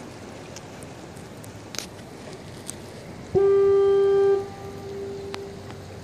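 Harbor foghorn sounding a single steady low blast of about a second, about three seconds in, then carrying on much fainter for another second or so before dying away.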